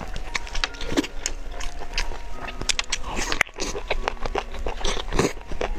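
Close-miked eating of roast chicken: wet biting, chewing and lip-smacking, with irregular sharp mouth clicks several times a second. Faint background music plays underneath.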